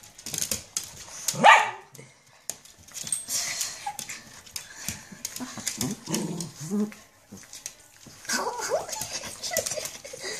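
Small dogs barking and yipping excitedly in play, with one loud bark about a second and a half in and more calls later. Short clicks and scuffles run throughout.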